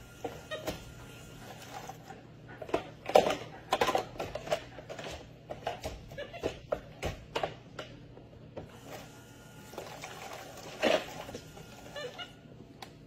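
Plastic toy dishes clattering and knocking against each other and against a plastic toy sink as a monkey handles them: irregular sharp knocks, loudest about three to four seconds in and again near eleven seconds.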